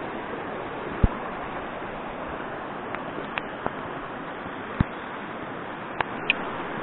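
Mountain river running, a steady rushing hiss, with six or so short sharp clicks and knocks from handling at close range.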